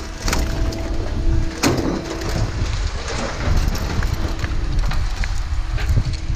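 A steady engine drone with a low rumble, dotted with short clanks and knocks of metal.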